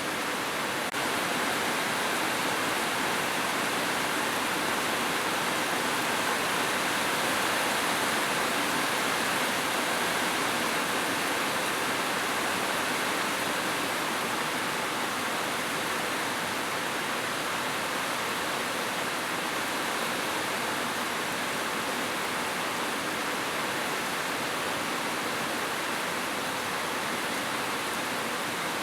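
Steady rushing of water, an even unbroken hiss with no distinct splashes or drops.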